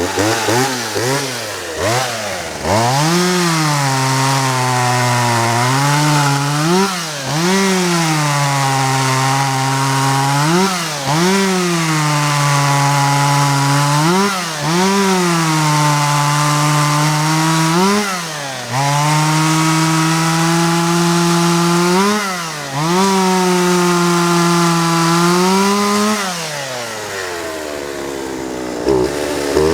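Vintage Poulan 2150 two-stroke chainsaw, loud, revved up again and again and held at high speed for a few seconds at a time, dropping back toward idle in between, as it cuts wood.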